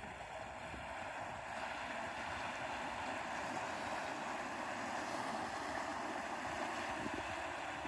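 Electric hydrofoil board under power, pulling its rider up: a steady rushing wash of water off the board, growing a little louder in the first second or two.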